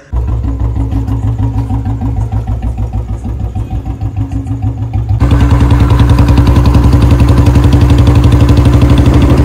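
Royal Enfield Bullet's single-cylinder engine running with an even, pulsing beat. About five seconds in it steps up sharply, louder and with faster pulses.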